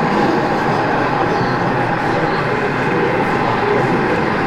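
Model train running steadily along the layout's track, heard over the low, continuous murmur of a busy exhibition hall.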